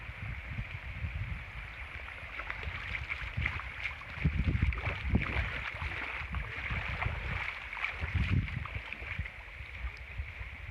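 Water pouring and splashing off a large square lift net as it is hauled up out of a pond, with crackly spattering through the middle of the stretch. A low wind rumble on the microphone swells loudest about four and eight seconds in.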